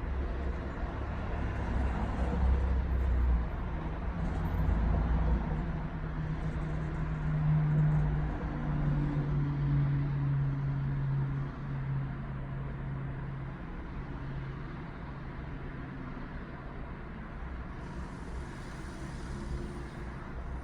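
A running vehicle: low rumble under a steady hum that shifts in pitch partway through, then eases off and runs quieter for the rest.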